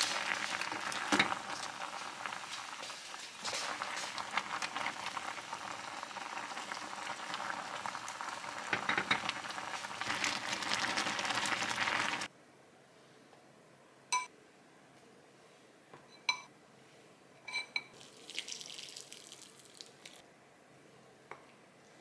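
A pot of mala fish-cake soup boiling on a gas burner, a dense crackling bubble that cuts off abruptly about twelve seconds in. After that it is quieter, with a few light ringing clinks.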